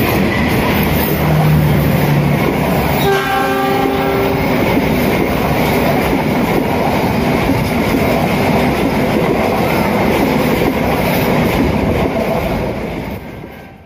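Passenger train passing close at speed: the diesel-electric locomotive's engine running as it goes by, then the coaches rushing past with a steady rumble of wheels on rail. A brief pitched tone sounds about three seconds in, and the sound fades out near the end.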